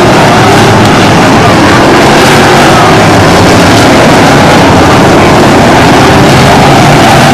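A field of short-track race cars running hard around the oval, a loud steady drone of many engines with faint pitches rising and falling as cars pass. The sound is so loud that it sits at the recording's limit throughout.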